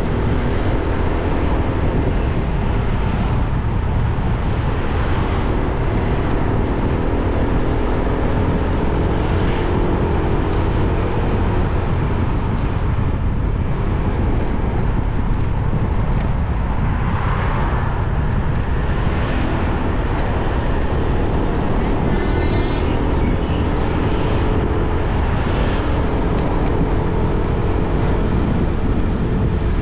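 Motorbike engine running under way, its pitch drifting up and down with speed, over steady heavy wind noise on the microphone.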